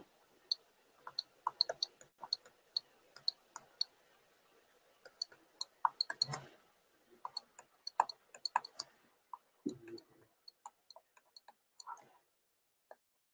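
Faint, irregular clicks and taps of a stylus on a tablet screen during handwriting, dense at first and thinning out toward the end, with a couple of duller knocks.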